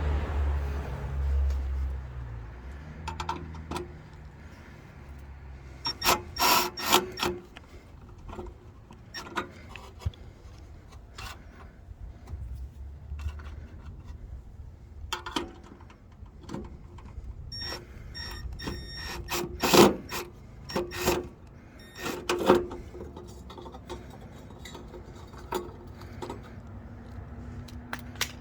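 Hand-tool and parts-handling noises: scattered knocks, clicks and scraping, with a short run of evenly spaced ticks near the middle, after a low rumble in the first couple of seconds.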